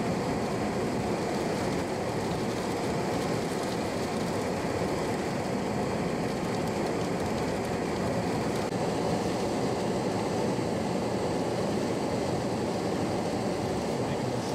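Steady rumbling road noise from a vehicle driving, unbroken and even throughout.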